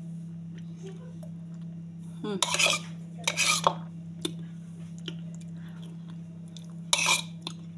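A metal spoon scraping and clinking against a dish or glass in three short bursts, with a faint click between them, over a steady low electrical hum.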